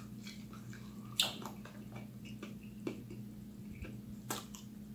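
Quiet wet mouth sounds of someone chewing a sauced chicken wing: soft smacks and clicks, the sharpest about a second in, over a steady low hum.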